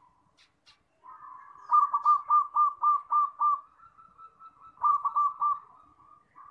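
Zebra dove (perkutut) cooing its song: a soft opening note, then a quick run of about seven staccato coos, a held note, and a shorter run of four coos.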